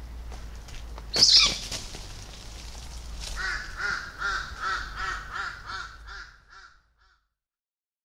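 A sudden loud burst about a second in, then a bird's harsh call repeated about ten times in an even series of two or three notes a second, fading toward the end.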